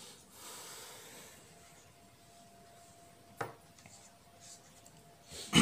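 Felt-tip marker rubbing and scratching on a sheet of paper, mostly in the first second and a half. There is a click about three and a half seconds in, and a louder thump at the very end.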